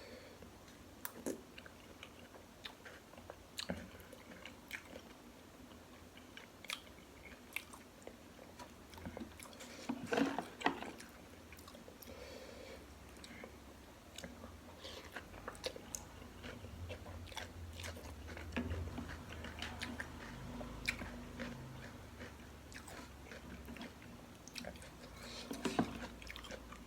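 Close-up mouth sounds of a person biting and chewing a beef meatball from bakso soup, with many short, wet clicks and smacks. There is a louder flurry of them about ten seconds in.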